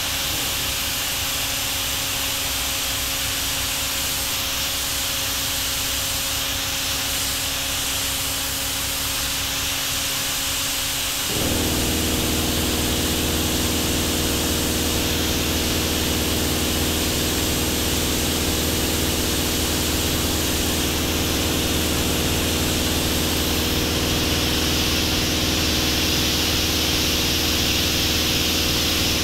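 Steady hiss of rushing air in a spray-painting booth. About eleven seconds in, a motor-driven machine starts up and adds a steady low hum that runs on.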